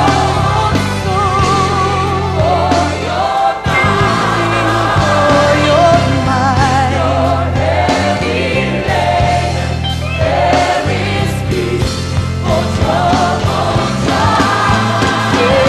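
Gospel choir singing with band accompaniment: voices with vibrato over a heavy, steady bass.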